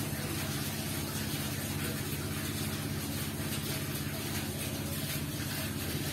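A steady low mechanical hum, like a motor running, with an even hiss above it.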